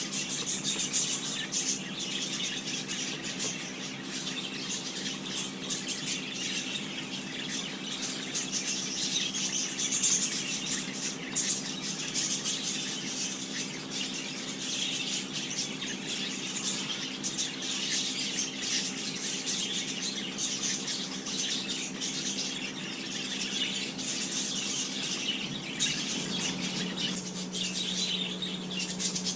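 Many small birds chirping and twittering together, many short calls at once, over a steady low hum.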